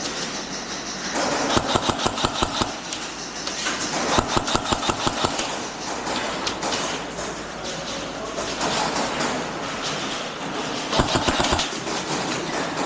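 Airsoft guns firing rapid full-auto bursts of BBs, several bursts one after another, the loudest about eleven seconds in.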